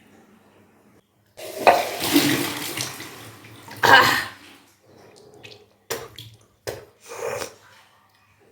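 A person retching and bringing up swallowed salt water in the kunjal kriya cleanse, the water gushing out and splashing in bursts: a long gush about a second and a half in, another around four seconds, then three short ones.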